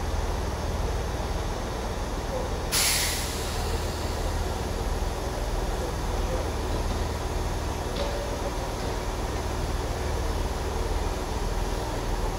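Class 166 Networker Turbo diesel multiple unit idling at the platform with a steady low rumble. About three seconds in comes a sudden loud hiss of compressed air lasting about a second, and a fainter short hiss later.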